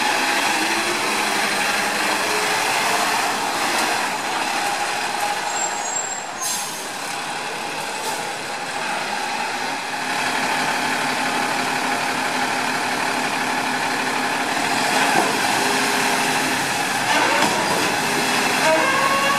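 New Way Mammoth front-loader garbage truck running while working a dumpster with its front forks, a steady engine and hydraulic drone. Near the end the pitch steps up as the engine revs for the lift.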